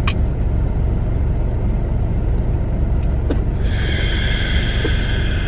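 Steady low rumble of a car cabin on the move, with a faint click at the start and another about three seconds in. About three and a half seconds in, a long, steady breathy exhale begins: a breath held to stop hiccups being slowly let out.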